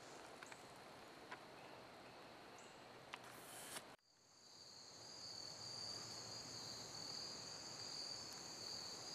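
Faint woodland quiet with a few light ticks. After an abrupt cut about four seconds in, a chorus of insects sings in a steady, high-pitched, even buzz.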